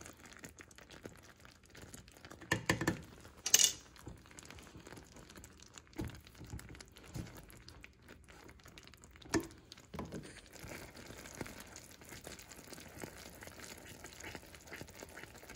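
Utensil knocking and scraping against a saucepan now and then as baking soda is stirred into hot, foaming caramel syrup, over faint bubbling. The sharpest knock comes about three and a half seconds in.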